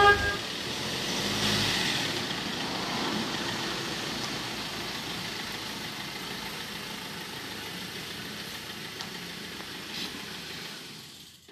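Pickup truck rolling slowly past with its engine running, loudest a second or two in and then fading steadily, with a brief knock near the end.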